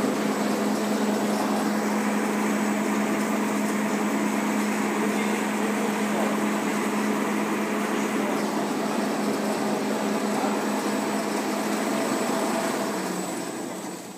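Two-side gusset plastic bag making machine running, a steady mechanical noise with a constant low hum and a thin high whine, which dies away near the end.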